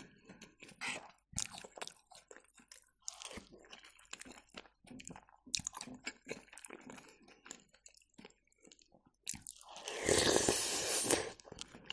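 Close-up eating sounds: quiet chewing with soft crunches and small clicks, then a louder slurp lasting about a second and a half, about ten seconds in, as a spoonful goes into the mouth.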